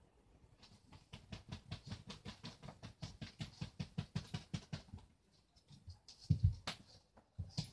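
Quick, soft rubbing strokes, about five a second, as a finger pets a small rodent's fur on a cloth bedsheet. They stop after about five seconds, and a single louder thump follows near the end.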